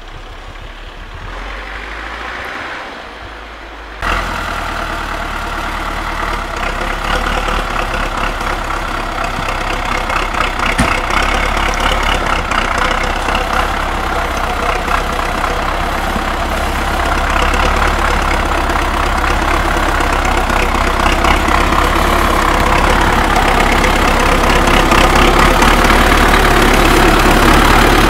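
Belarus tractor's diesel engine running as the tractor drives through snow and mud. It comes in suddenly about four seconds in and grows steadily louder as the tractor comes closer.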